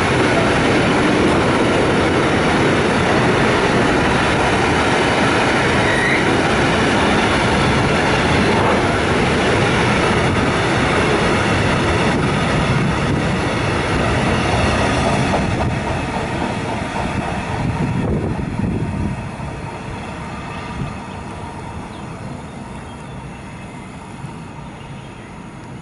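Freight train of container flat wagons rolling past at speed: a steady rumble and rattle of wheels on the rails, which fades from about halfway through as the end of the train draws away.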